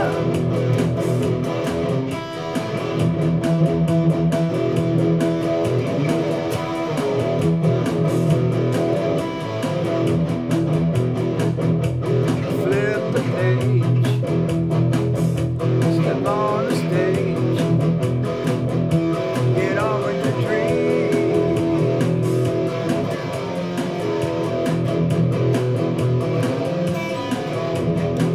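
Instrumental break on a PRS SE Standard electric guitar over a BeatBuddy drum-machine beat, with a few notes sliding up in pitch partway through.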